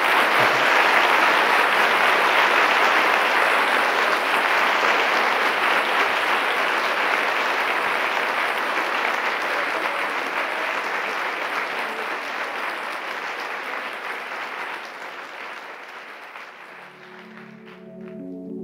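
Audience applauding at the end of a speech, steadily at first and then slowly dying away over the last several seconds. Soft, ringing music comes in near the end.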